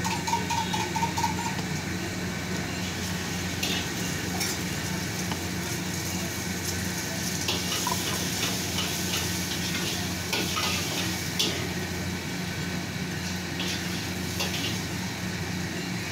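Steady sizzle of a hot street-stall griddle over a low hum, with short metallic rattles every few seconds as a tin spice shaker is shaken over an egg roll.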